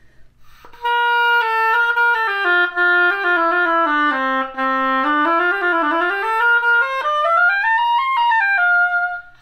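An oboe is played on a freshly scraped cane reed to test it. A melodic line steps down to the instrument's low register, climbs back up well over an octave and ends on a held note. The player hears the reed's C's and F's as still sitting sharp.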